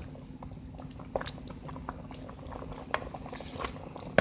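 Pot of okra soup simmering and bubbling, with scattered small pops and a few sharper clicks.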